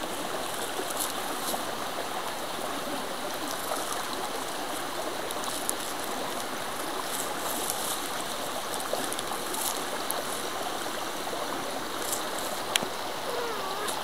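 Mountain stream running steadily, an even rush of water, with a sharp click near the end.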